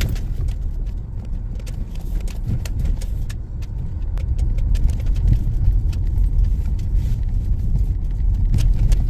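Honda CR-V SUV driving, with a steady low road rumble in the cabin and frequent small rattles and jangles from loose items.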